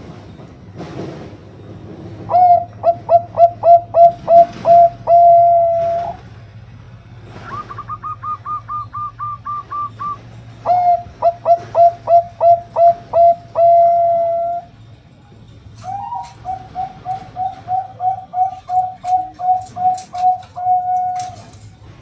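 Zebra dove of the Thai 'Bangkok' song line cooing in three loud phrases. Each phrase is a quick run of deep, evenly spaced coo notes ending in a drawn-out final note. Between the first two phrases comes a quieter, higher-pitched run of notes.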